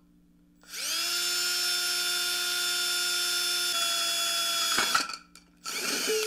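Cordless drill boring a hole through a metal mason jar lid. The motor spins up with a rising whine and runs steadily, dropping a little in pitch partway through, and stops about five seconds in. A second short burst follows just before the end.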